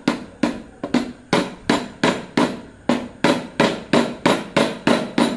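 Red-headed mallet tapping magnets down into the slots of an e-rickshaw motor's rotor to seat them, a steady run of sharp knocks about three a second.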